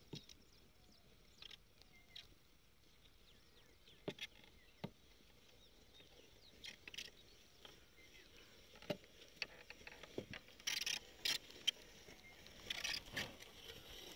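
Bullocks' hooves and a wooden plough crunching through dry rice stubble and soil clods, heard as scattered soft knocks and rustles. They grow denser and louder about two thirds of the way in as the team passes close.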